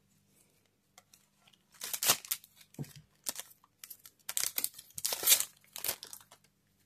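Waxed-paper trading-card pack wrappers crinkling and tearing as packs are opened, in a string of short rustles and rips that start about two seconds in.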